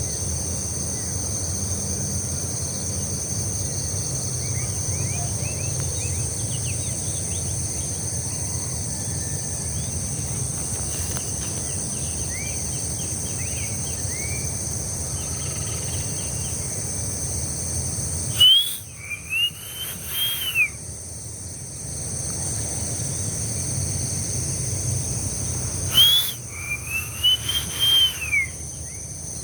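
Outdoor nature ambience: a steady high insect drone over a low, even rumble, with scattered short bird chirps. Twice, about two-thirds of the way through and again near the end, a bird gives a loud run of whistled, arching calls, the loudest sounds here.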